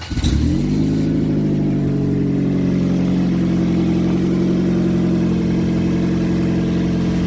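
2005 Mazda Tribute's 2.3-litre four-cylinder engine catching right at the start and settling within about a second into a steady idle, first started after a fresh oil change.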